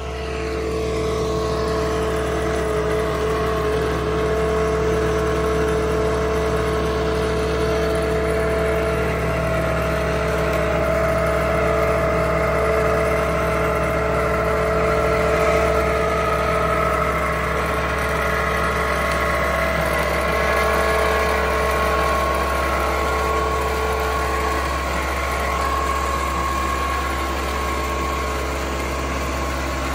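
Kubota B1241 compact tractor's three-cylinder diesel running steadily, driving a side-mounted flail mower cutting grass and weeds, with a steady mechanical whine over the engine. The sound swells in the first second, then holds.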